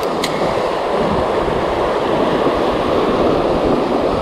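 Sea surf breaking and washing over shoreline rocks: a loud, steady rushing. A single short sharp tick sounds just after the start.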